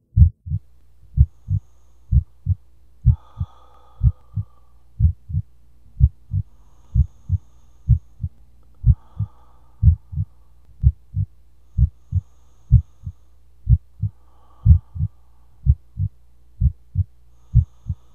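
Heartbeat sound effect: paired low thumps, lub-dub, about once a second, steady in pace, over a low steady hum.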